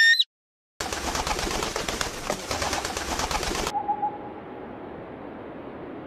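The last moment of a bald eagle's high, piping call. After a short gap comes a few seconds of noisy outdoor recording with low dove cooing, then a quieter stretch of hiss.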